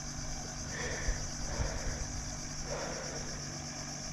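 Steady high-pitched insect chorus, with a faint low steady hum underneath.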